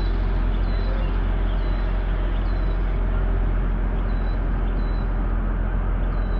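A boat's diesel engine running steadily, a loud, even low rumble. A faint high chirp recurs about every half second above it.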